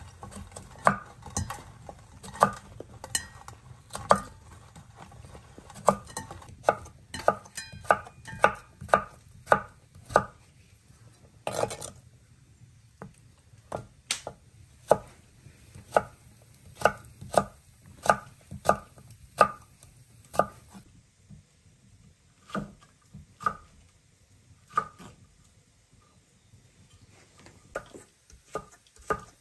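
Knife chopping on a cutting board: sharp, irregular strokes, one or two a second, thinning out to a few spaced strokes in the last third.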